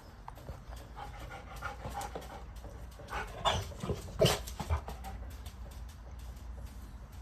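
Labrador retriever panting, with scattered small clicks and a few louder sharp knocks about three to four seconds in.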